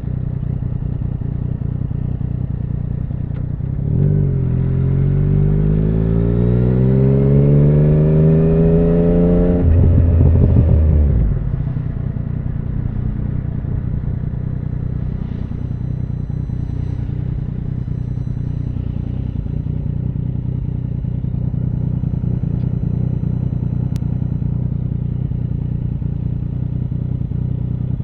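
2017 Yamaha MT-09's inline three-cylinder engine through an Akrapovic Racing Line carbon full exhaust. It runs low and steady, then accelerates from about four seconds in with a rising pitch. A few seconds later it eases off and settles back to a steady low running note.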